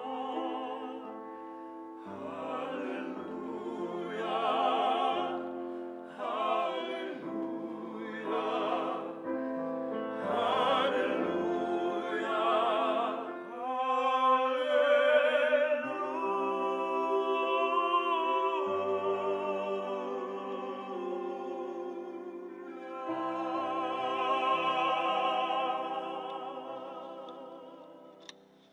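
Three tenors singing an operatic piece together in close harmony with wide vibrato and long held notes, over piano accompaniment. The music fades out near the end.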